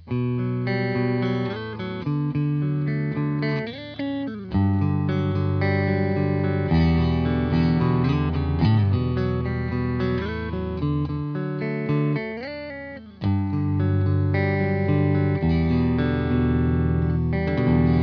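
Electric guitar played through a Fender Super-Sonic 22 tube combo amp and picked up by a microphone at its speaker: chords and notes ringing out and changing every second or two, with a short drop in level about thirteen seconds in.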